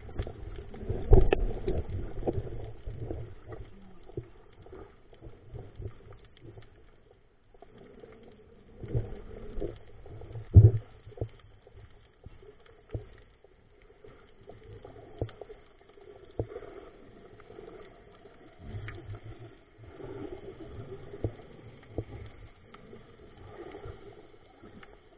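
Muffled underwater sound of water moving around the camera, with irregular knocks and thumps. The loudest come about a second in and again about ten and a half seconds in.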